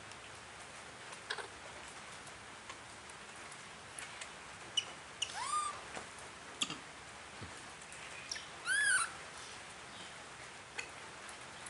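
Baby monkey calling: two short, arching squeaks about three seconds apart, with a few faint clicks and taps in between.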